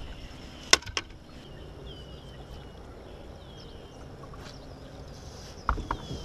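Two sharp knocks about a second in, the loudest sounds here, then a series of short, high, falling bird chirps over a low haze of wind and water, with a few more knocks near the end.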